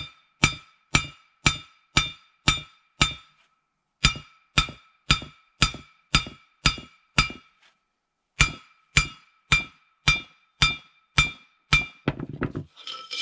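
Hammer blows on the steel Stefa seal sleeve of a Nuffield tractor axle shaft, about two a second in three runs of roughly seven, each blow ringing. The hammering stretches the sleeve until it comes loose. A short rattling clatter follows near the end.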